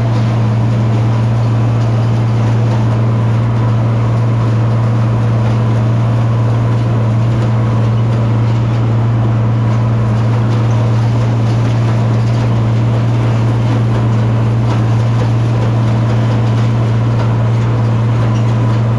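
Tractor engine running at a steady speed, a constant low drone with a faint steady whine above it.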